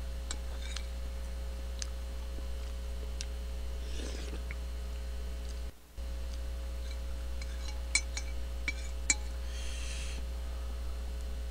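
Metal cutlery clinking and scraping against a plate while eating, with a few sharp clinks, the loudest about eight and nine seconds in, over a steady electrical mains hum.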